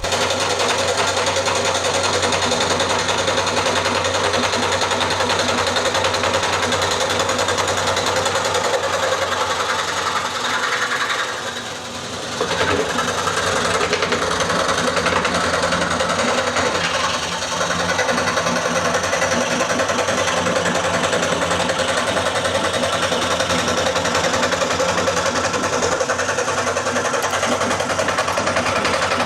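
Wen 3921 16-inch scroll saw running steadily with its blade reciprocating. The sound dips briefly about 11 seconds in and again, less, around 17 seconds.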